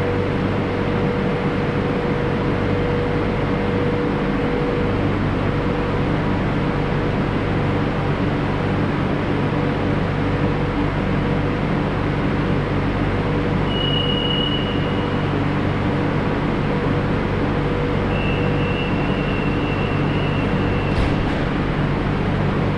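A Madrid Metro train running: a steady, unbroken running noise, with a thin high whine twice in the second half.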